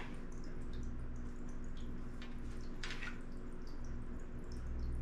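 Aquarium filter running: a steady low hum with small trickling drips and ticks of water, and a brief rustle of clothing being handled about three seconds in.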